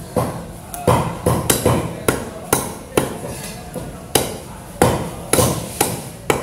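Heavy cleaver chopping pieces of flathead fish on a wooden log chopping block: a series of sharp knocks, roughly two a second at uneven spacing.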